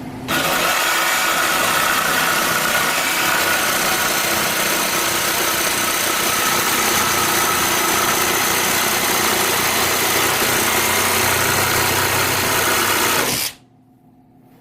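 BLACK+DECKER 20V MAX cordless jigsaw (BDCJS20B) running steadily while making a straight cut, then stopping abruptly near the end.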